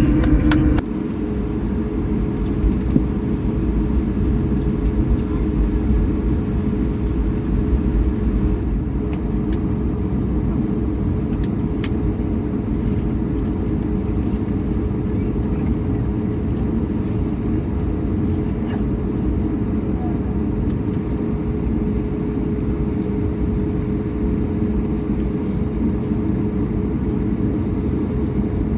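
Cabin noise inside an Airbus A220-300 airliner: the engines and airflow make a steady low rumble with a constant drone over it. The noise eases off sharply about a second in, then holds level.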